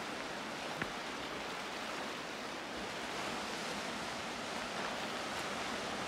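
Sea surf on a rocky shore: low waves washing in, a steady even hiss.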